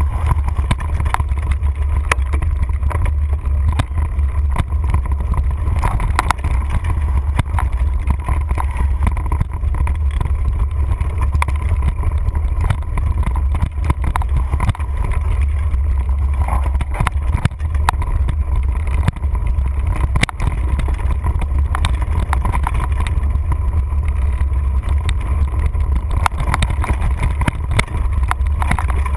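Wind buffeting the microphone of a handlebar-mounted camera on a mountain bike riding a dirt singletrack, a steady low rumble, with frequent clicks and rattles from the bike jolting over the rough trail.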